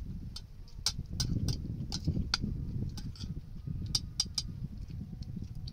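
Spoons clinking and scraping against plates during a meal: a dozen or so light, irregular clicks, over a low rumble.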